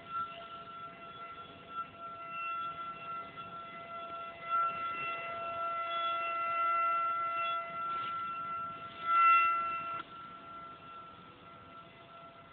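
An alarm siren sounding one steady pitch, growing louder in the middle and dropping back about ten seconds in, with a brief louder rush of noise just before it drops.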